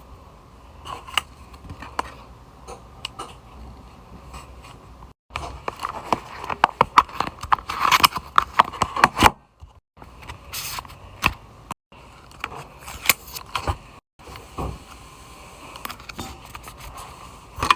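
Close-up handling noise: irregular clicks, taps and scraping of small objects near the microphone, broken by several abrupt cuts to silence where short clips are joined.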